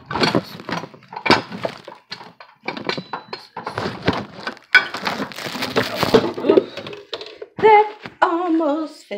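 Irregular clattering and rustling from things handled close to the phone microphone. Near the end a woman sings a few short, wavering notes.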